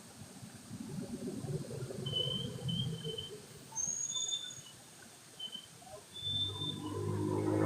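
Walking sounds with rustling, a few short high bird chirps in the middle, then a vehicle engine growing louder near the end as it approaches.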